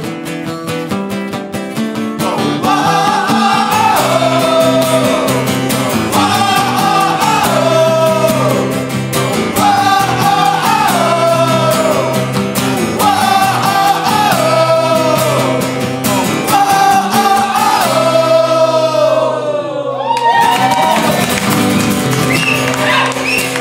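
Two acoustic guitars strummed under several voices singing together, a phrase repeating about every two seconds. About twenty seconds in, the guitars stop and the singers break into shouts and cheers as the song ends.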